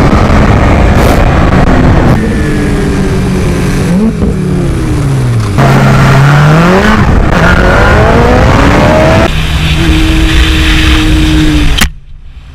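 Sport motorcycle engines revving hard at speed, the pitch climbing and dropping with throttle and gear changes, over heavy wind rush on a helmet-mounted camera. The sound changes abruptly several times as the clips switch.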